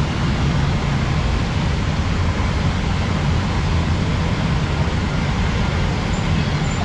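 Chapli kebabs sizzling in a wide pan of hot oil over a gas burner: a steady low roar with an even frying hiss above it.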